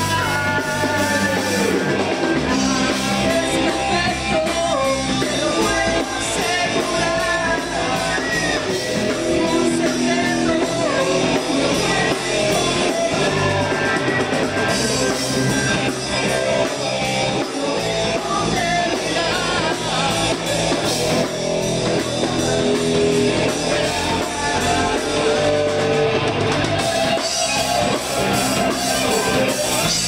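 Rock music with singing, guitar and drums.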